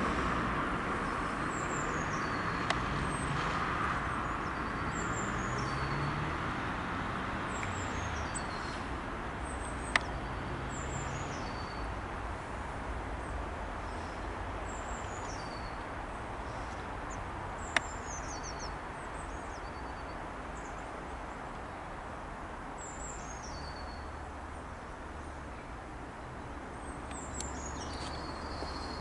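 A small bird singing a short high phrase that falls in pitch, repeated every two to three seconds, over a steady distant rumble that slowly fades. Two sharp clicks, about ten seconds in and again about eight seconds later.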